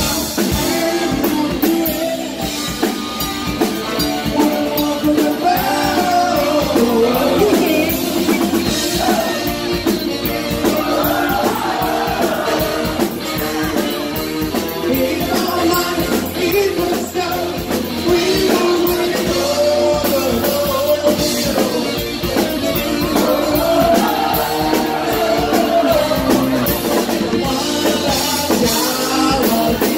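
Live band playing rock music: a man sings lead over electric bass, keytar and saxophone, continuously and loud.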